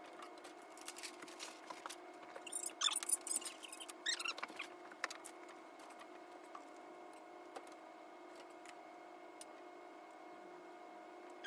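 Voices played at eight times speed, turned into short high chirpy squeaks, in a few bursts during the first half, over a steady faint hum.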